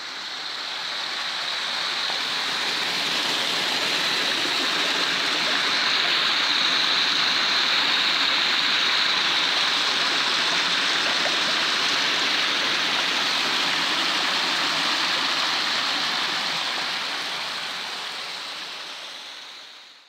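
Stream water rushing and splashing over rocks in a small cascade, a steady rush that fades in at the start and fades out at the end.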